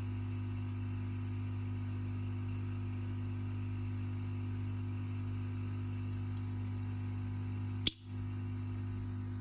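Steady electrical hum, with one sharp click about eight seconds in.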